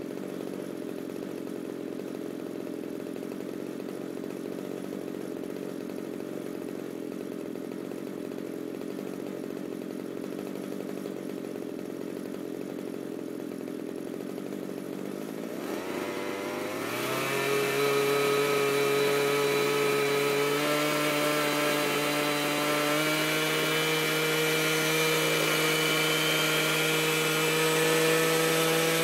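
Small two-stroke gasoline engine of an Align T-Rex 700 RC helicopter idling steadily. About halfway through it is throttled up: its pitch rises and it runs louder as the rotor spins up, then steps up in speed twice more.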